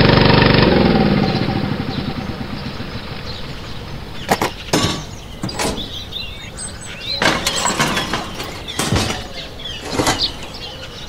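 Small electric motor of a miniature water pump running with a steady pitched hum, dying away within the first two seconds. After that, several sharp clicks and knocks come a second or so apart, with faint bird chirping behind.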